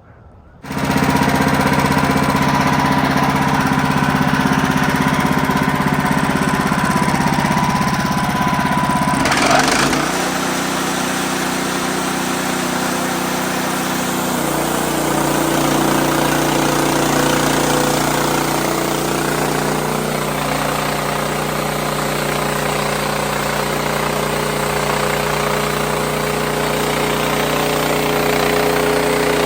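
WoodMizer LX55 portable band sawmill running, its engine driving the band blade through a poplar log. The sound starts suddenly just under a second in, and the engine note changes about nine to ten seconds in.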